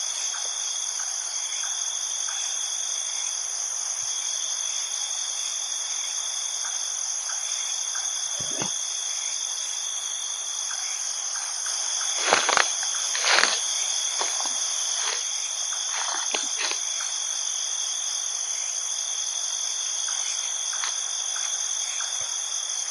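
Night insect chorus, crickets trilling steadily at two high pitches. A few short knocks or rustles break in around the middle.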